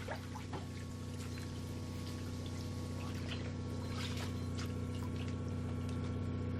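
Trickling, bubbling water with many small scattered pops over a steady low hum.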